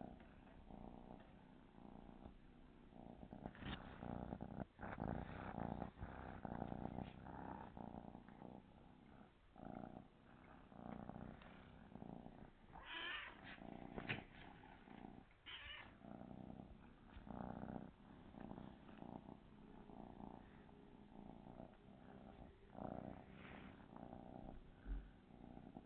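Calico kitten purring close by, the purr rising and falling in uneven waves, with a couple of brief rustles about halfway through.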